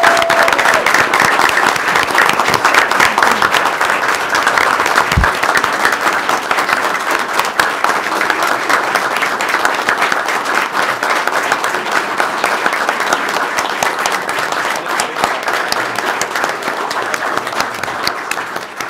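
A room of people applauding, a long round of clapping that dies away near the end.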